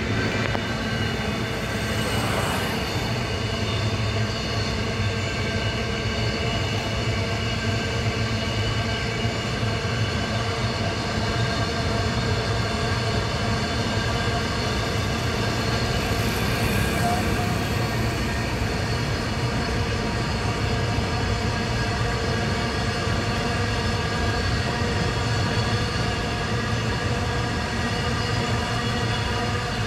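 Long freight train running past, a steady rumble with a constant drone over it that does not change.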